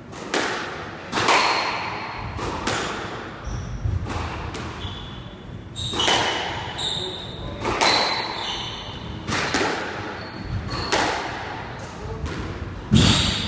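Squash rally: the ball is struck by racquets and hits the court walls, sharp echoing thwacks about every one and a half to two seconds, the loudest near the end. Short high squeaks of shoes on the wooden court floor come between the hits.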